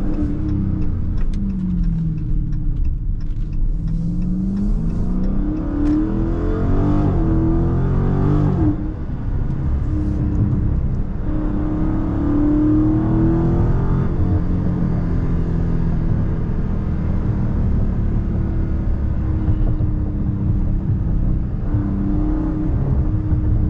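Dodge Charger Scat Pack's 392 (6.4-litre) Hemi V8 with a mid-muffler-deleted exhaust, heard from inside the cabin under hard acceleration. Its pitch climbs, dips briefly at an upshift about nine seconds in, climbs again, then settles to a steadier note.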